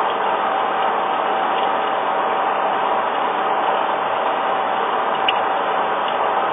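Gear-cutting machine tool running steadily: a dense mechanical noise with a constant whine through it, and one sharp click about five seconds in.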